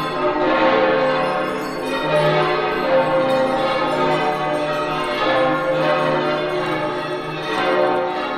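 Church bells ringing, several bells pealing together, each stroke ringing on under the next ones.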